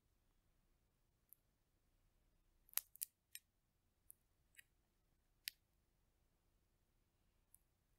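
Roasted chestnut shell cracking and being peeled by fingers: a run of short, sharp snaps of the brittle shell, about eight in all, the loudest a little under three seconds in.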